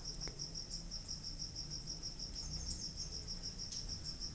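A cricket chirping in an even, high-pitched trill of about eight pulses a second, over a faint low hum.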